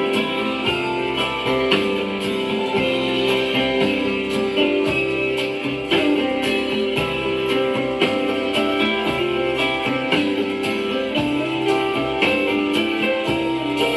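Instrumental guitar break of a pop-rock song with a steady beat, played back from a home-cut flexible Lexan record disc that carries some surface noise.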